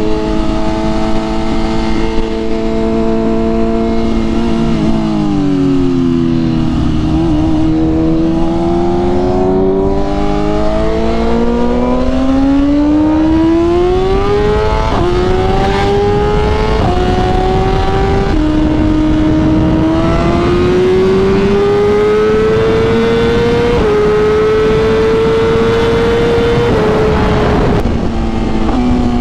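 BMW M1000RR's inline-four engine running through a full titanium exhaust (Akrapovic headers, SC Project slip-on), heard from the rider's seat. It holds a steady note, slows for a few seconds, then pulls back up through about three quick upshifts, each a sudden drop in pitch followed by a climb. It eases off again near the end.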